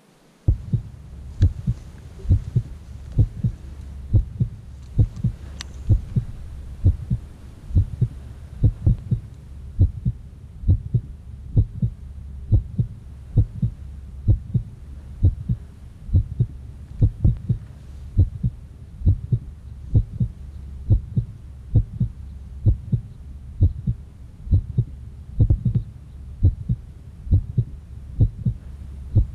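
Heartbeat sound effect: steady low thumps at about one and a half beats a second over a low hum, starting abruptly about half a second in.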